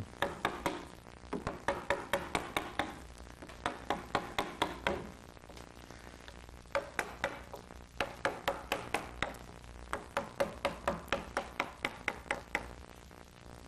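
A wooden carver's mallet tapping a carving gouge through a block of white pine, roughing out the wood. Several runs of quick, light taps, about four a second, with short pauses between the runs.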